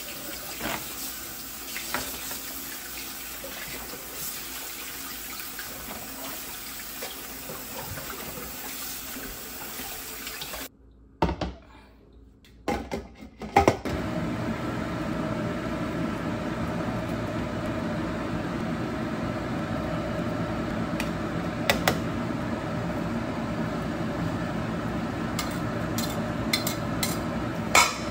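Kitchen tap water running into a stainless-steel sink as pork offal is rinsed under it, cut off suddenly about ten seconds in. After a few knocks, a steady hum takes over, broken by occasional sharp metal clinks against a steel cooking pot.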